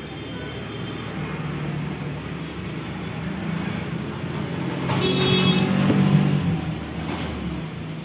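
A motor vehicle passing on the road: its engine grows louder to a peak about five to six seconds in, then fades.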